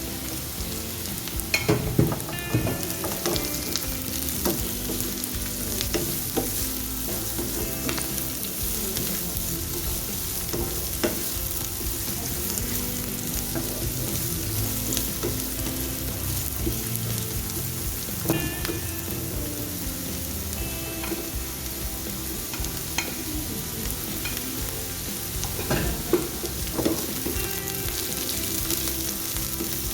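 Food sizzling steadily in hot oil in a pan, with occasional sharp clicks and scrapes of a utensil against the pan as it is stirred or turned.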